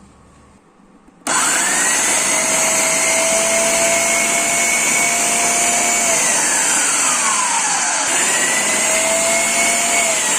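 Preethi Zodiac mixer grinder's electric motor switched on about a second in, whining up to speed and running loudly while slicing onions. Its pitch sags around the middle, climbs again after a brief break, and sags once more near the end.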